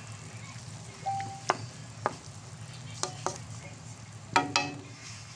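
A spatula scraping and knocking against a nonstick wok, several separate strokes, while pork pieces simmer in a sauce with a steady low sizzle underneath.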